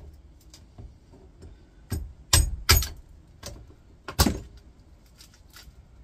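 Four sharp hammer strikes on a microwave oven transformer's steel lamination core held in a vise, knocking the core apart to free the copper windings, with lighter metallic clinks between.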